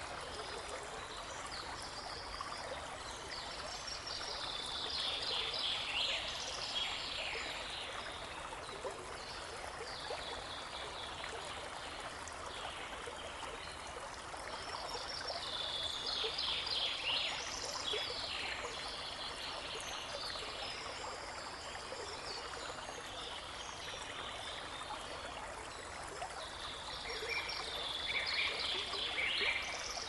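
Small brook babbling steadily, with a songbird singing three bouts of quick, high chirping song over it.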